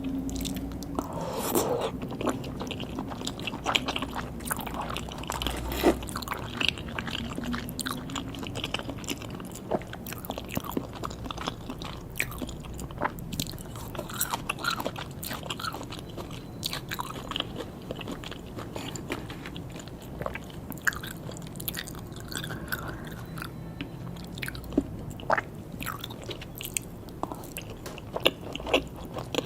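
Close-miked chewing and biting of sushi and sashimi: soft wet mouth sounds with many short crackles and clicks throughout.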